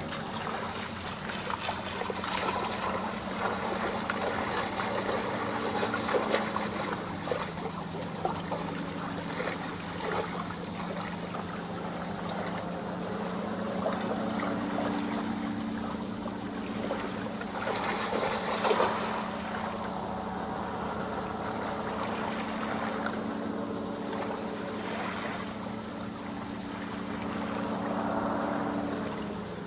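Small waves lapping at the water's edge under a steady low engine hum, with a brief louder splash of water a little past halfway.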